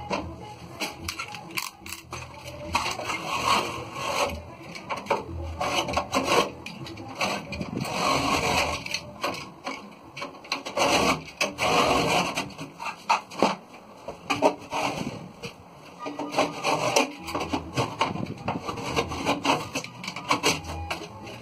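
A shelf board scraping and rubbing against a galvanized steel frame as it is worked into place, in irregular strokes with occasional sharp knocks.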